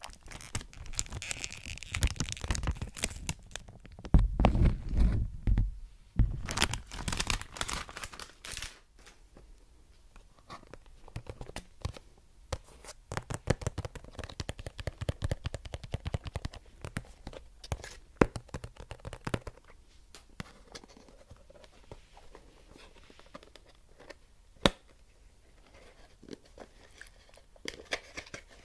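Clear cellophane wrapping crinkled and pulled off a perfume box close to the microphone, loud and crackly for the first several seconds. After that come scattered light taps and scratches of fingers and nails on the cardboard box.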